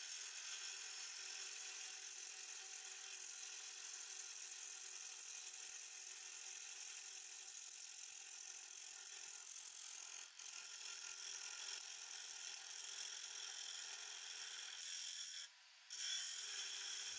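A Hunter Hercules carbide-cutter turning tool shearing a spinning maple burl and resin bowl on a lathe, a steady high cutting hiss as it takes shavings off the outside wall. The sound breaks off briefly about two-thirds of the way through and again for a moment near the end.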